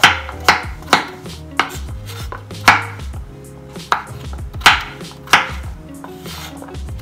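Kitchen knife cutting peeled pumpkin into cubes on a wooden chopping board: sharp, irregular knocks of the blade going through the flesh onto the board, about one or two a second.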